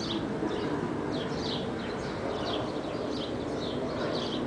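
Birds chirping in short, repeated calls, roughly two a second, over a steady background hum.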